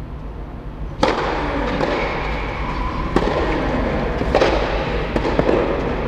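Tennis ball struck by rackets in a rally on an indoor clay court: a sharp serve about a second in, then returns and volleys every second or two. Each hit echoes around the domed hall.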